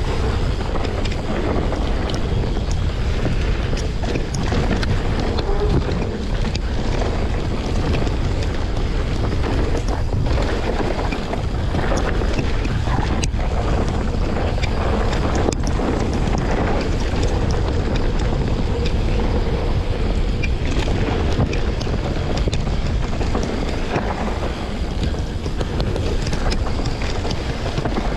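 Wind rushing over the camera microphone and a mountain bike's tyres rolling over a dirt trail at speed, with frequent clicks and knocks as the bike rattles over bumps.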